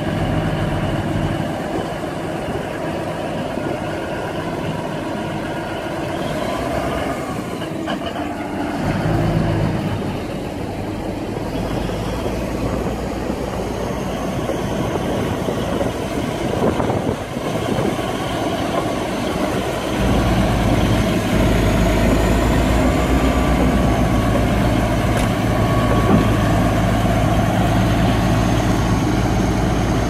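Komatsu D375A crawler bulldozer's diesel engine running as the machine crawls along, a steady low drone that gets louder about twenty seconds in.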